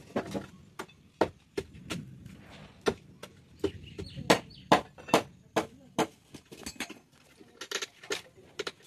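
An iron crowbar knocking and prying at wooden shuttering boards on the edge of a cast concrete roof slab, as the formwork is stripped: a run of sharp, irregular knocks, a few a second, loudest about halfway through.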